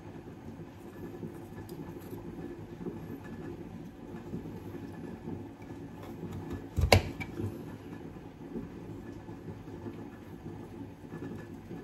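A steady low rumble of kitchen background noise, with one sharp knock about seven seconds in and a few faint clicks during food preparation.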